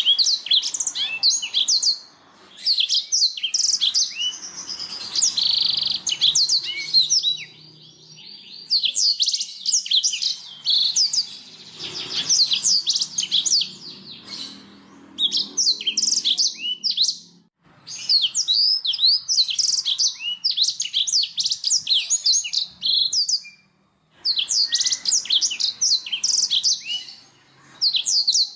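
Domestic canary singing: long phrases of fast, high trills and chirps, broken by several short pauses.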